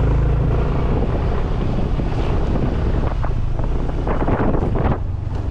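Wind buffeting the microphone while riding a Yamaha scooter, with the scooter's engine running steadily underneath.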